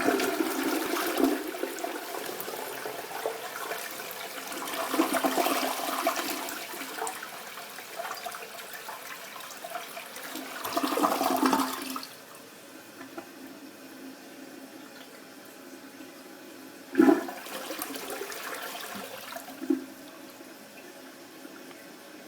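Toilet flushing: a sudden loud start, rushing water that swells twice, then drops away about twelve seconds in to a quieter steady hiss of water. Two sharp knocks sound during the hiss.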